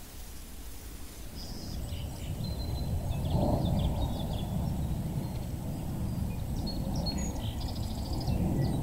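Small birds chirping and calling in short high notes over a low rushing outdoor noise that swells about three seconds in and again near the end.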